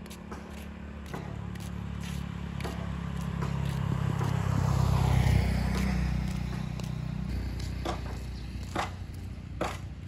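A motor vehicle passes on the road, its engine hum and tyre hiss swelling to a peak about five seconds in and then fading. Footsteps on pavement tick about once a second throughout.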